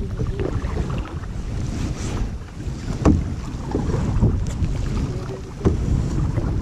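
Wind rumbling on the microphone out on the water, with two sharp knocks, one about three seconds in and one near the end.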